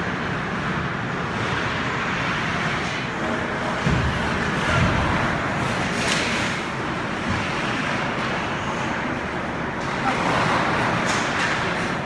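Ice hockey play in an indoor rink: a steady noisy wash of skates on the ice and the rink hall, with two dull thumps about four and five seconds in and a short sharp noise about six seconds in.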